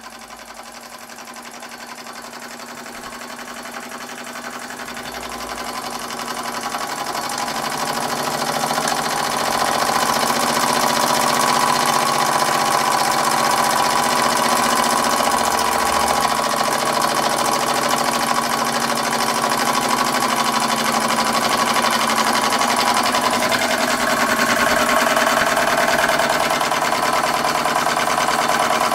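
Empire B-43 model steam engine running fast, a rapid, even mechanical beat with steam hiss. It grows louder over the first ten seconds or so, then runs steadily.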